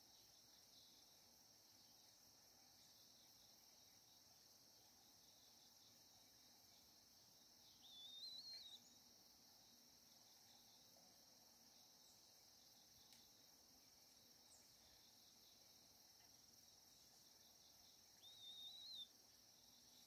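Faint, steady, high-pitched insect chorus, crickets by their sound, with two short wavering calls, one about eight seconds in and another near the end.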